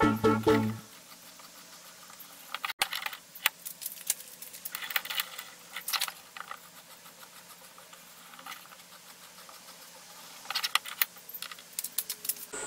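Scattered light metallic clicks and taps in small clusters, from metal parts being handled and set in a drill-press vise, over a faint steady hum. Music fades out in the first second.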